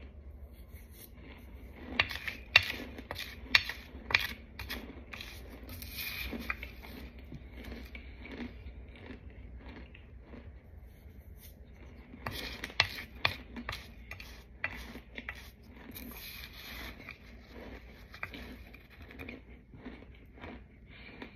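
Dry, chalky white powder lumps crunching and crackling, with a metal spoon scraping through the powder on the plate. The sharp crunches come in two dense clusters, a couple of seconds in and about twelve seconds in, with softer scattered crackle between.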